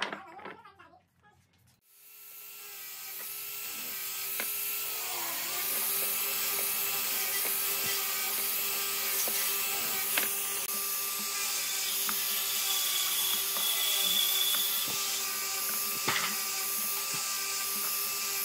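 Handheld angle grinder with a sanding disc running steadily, sanding pine blocks, from about two seconds in. Its whine dips briefly in pitch a few seconds after it comes in, and there are a few light knocks of wood.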